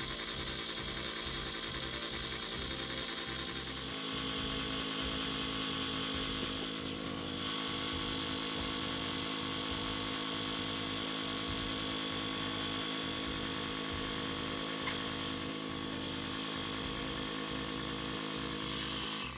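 A small motor running steadily, its note shifting about four seconds in.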